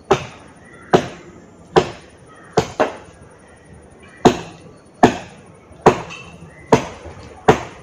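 Steady chopping: a blade striking wood in sharp, loud blows, a little more than one a second, with two quick blows close together about two and a half seconds in.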